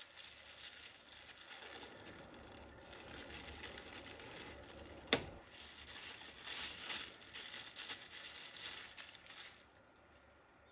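Packaging crinkling and rustling as it is unwrapped and handled, with one sharp click about five seconds in; the rustling stops about a second before the end.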